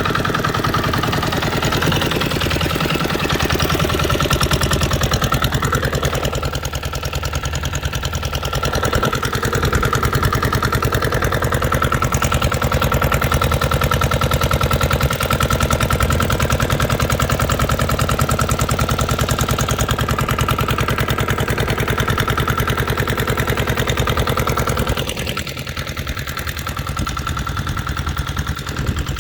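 Boat engine running steadily at an even pace; it eases off a little about 25 seconds in.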